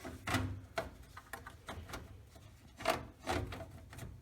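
A motherboard being worked into a PC case: a few short, sharp knocks and light clatter of the board and hands against the case.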